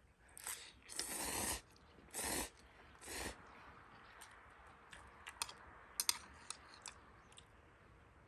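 Instant ramen noodles slurped in four noisy bursts, one of them long, followed by a few light clicks.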